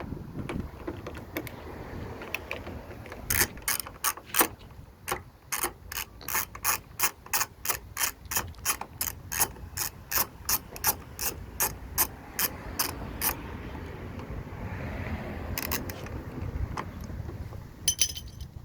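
Ratcheting tool driving a T30 Torx bit, clicking steadily at about three clicks a second as the door handle's retaining screw is loosened, with a few more scattered clicks near the end.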